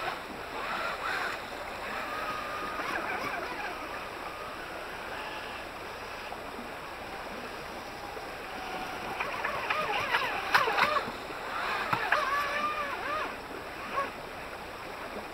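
Small RC jet boat's jet drive whining, its pitch rising and falling with the throttle, over the steady rush of a shallow whitewater creek. The whine grows louder with a few sharp splashes about ten seconds in.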